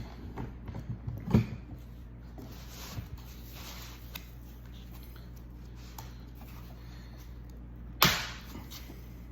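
Small clicks and knocks of tools and small laptop parts being handled and set down on a work surface during disassembly, with one sharper knock near the end, over a steady low hum.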